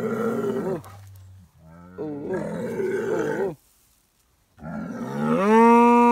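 Jersey bull bellowing in three long drawn-out calls. The last is the loudest: it starts about four and a half seconds in, rises in pitch and then holds. A low rumble runs underneath between the calls.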